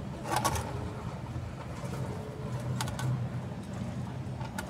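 Brief clicks and scrapes of potting work: a thin brush handle tapping and scraping soil in a ceramic pot around a succulent, loudest about half a second in and again near three seconds and near the end. A steady low rumble runs underneath.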